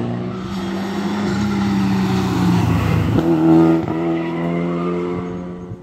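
Rally car engine running hard on a tarmac stage, its note dipping and climbing again a few times a little past halfway as the driver shifts gear, then easing off near the end.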